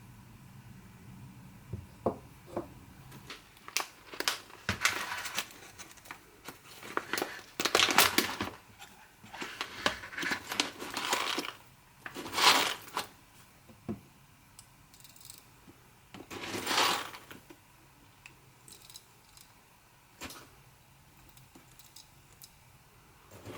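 Crinkling and tearing sounds in a series of bursts of one to two seconds each, the kind made when something is unwrapped or torn open, with scattered clicks and knocks between.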